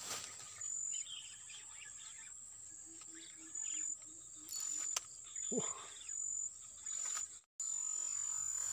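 Insects trilling in high-pitched bursts that start and stop, with a short run of low pulsed calls, about four a second, around the middle.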